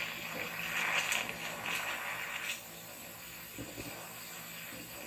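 DC TIG welding arc from a scratch-start 3/32 tungsten on quarter-inch steel at about 165 amps under argon, with an even hiss. The hiss is louder for the first two and a half seconds, then settles quieter.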